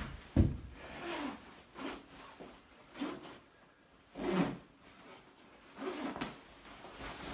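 Irregular handling sounds: a sharp knock, then scrapes and rustles about once a second, the loudest a longer rub a little past four seconds in.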